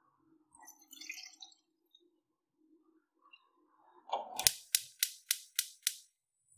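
Gas hob's electric spark igniter clicking six times in quick, even succession, about three or four clicks a second, as the burner knob is pushed in and turned to light the burner.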